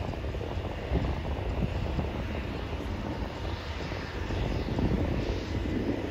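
Embraer ERJ regional jet's turbofan engines running as it rolls along the runway: a steady jet rumble, with a faint whine that shifts in pitch in the second half.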